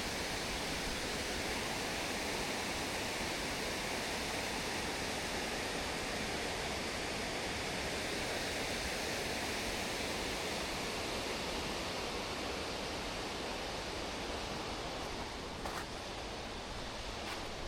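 Steady rush of fast-flowing water, a thaw-swollen stream or falls, with a couple of faint clicks near the end.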